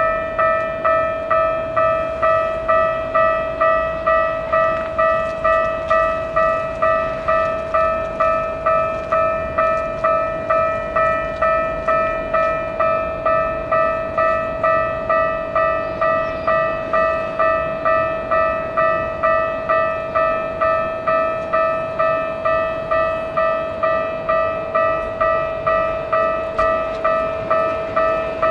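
Japanese railway level-crossing warning bell ringing over and over in an even electronic ding, a little under twice a second. Near the end, an approaching train starts to be heard underneath it.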